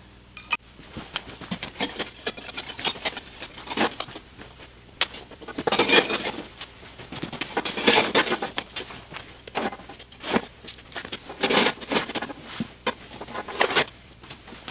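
Steel parts of a homemade propane forge being handled by hand: a string of irregular metal knocks, clinks and scrapes, busiest in the middle stretch.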